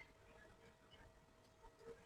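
Near silence: room tone with a few faint light ticks, one near the end.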